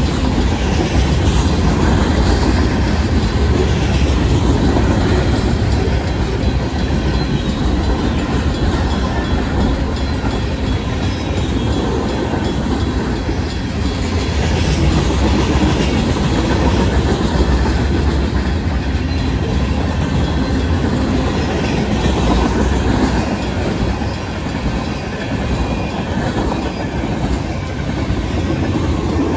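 Freight cars of a long Union Pacific mixed freight train, including hoppers, boxcars and tank cars, rolling past at speed. The wheels on the rails make a loud, steady rumble.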